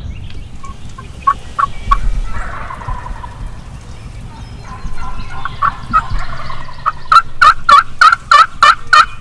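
Turkey calling: a few scattered short notes, then a quick run of about nine loud, evenly spaced calls in the last two seconds.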